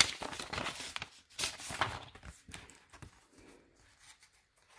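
Paper rustling and light clicks as a greeting card is slid out of a paper envelope and handled, fading away in the last second or so.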